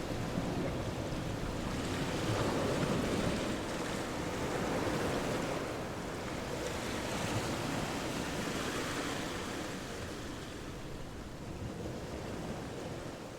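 Wind and lake water rushing steadily, swelling a little in the first few seconds and easing off toward the end.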